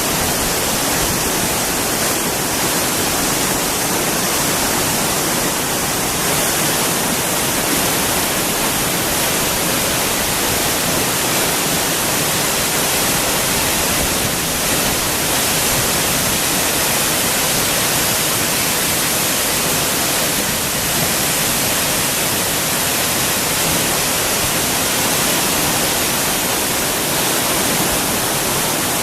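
Tall waterfall pouring steadily: a loud, even rush of falling water with no let-up.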